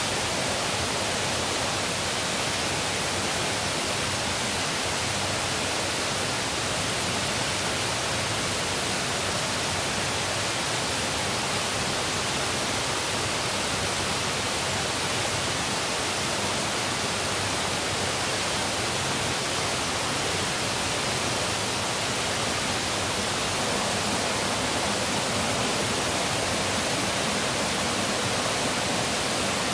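Steady rushing of a river, an even hiss with no change throughout.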